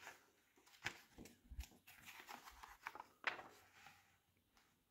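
Faint rustling and a few soft ticks of a paper magazine's pages being handled and turned.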